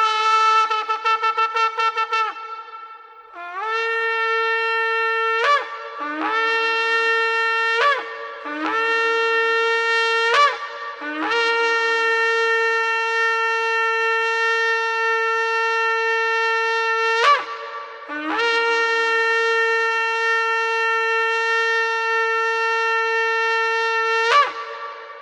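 A shofar being blown. It opens with a quick run of short staccato notes, then gives several broken notes that each leap up in pitch, and ends with two long steady blasts, each closing with a sharp upward jump.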